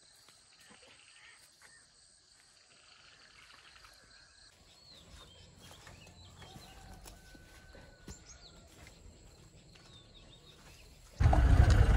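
Faint outdoor ambience of insects trilling steadily at a high pitch, with scattered bird chirps. About eleven seconds in, it cuts abruptly to loud, low vehicle engine and road rumble.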